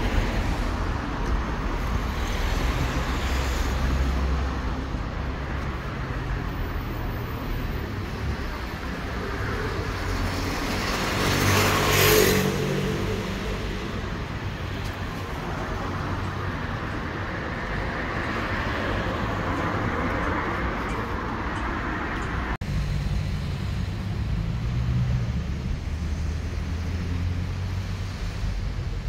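Steady city street traffic: cars driving past on the road. One vehicle passes close and is loudest about twelve seconds in.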